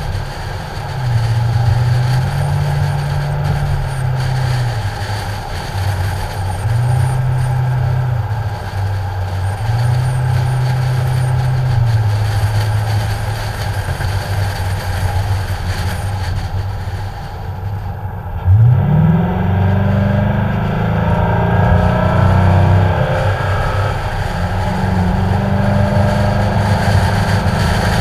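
Ford Mustang's engine running on the move, its note stepping up and down with the throttle, heard through wind rushing over the hood-mounted camera in its protective case. About eighteen seconds in the engine gets suddenly louder and rises in pitch as the car accelerates.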